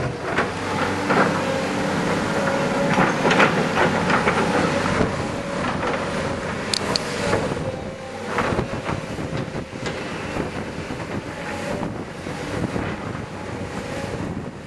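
Blustery wind buffeting and crackling on the microphone, over the steady engine hum of tracked excavators at work.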